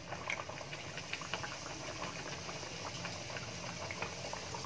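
Puri dough deep-frying in hot oil in a wok: a steady sizzle full of small, quick crackling pops.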